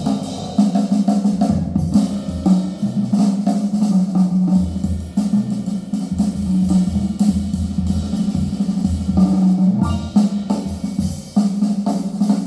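Recorded music with a prominent drum kit, kick and snare over a bass line, played back through horn loudspeakers.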